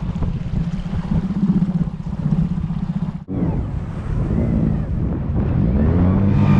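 Outboard motor running at low revs, a steady low hum with wind blowing on the microphone. The sound drops out for an instant about three seconds in, and the motor's pitch rises and wavers near the end.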